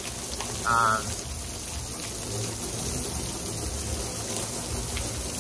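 Water spraying steadily onto a window air conditioner, rinsing the soaked-in bleach and soap cleaner out of its moldy coils.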